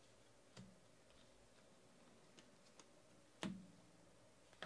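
Near silence broken by a few faint clicks of trading cards being flipped and handled, the loudest a single sharp tap about three and a half seconds in.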